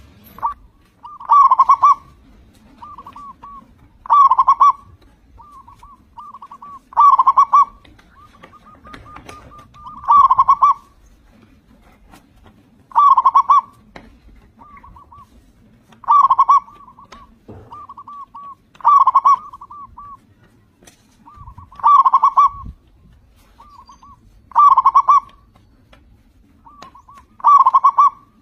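Zebra dove (local Indonesian perkutut) in full song. It repeats its cooing phrase about every three seconds, about ten times: a few soft short notes, then one loud cooing note.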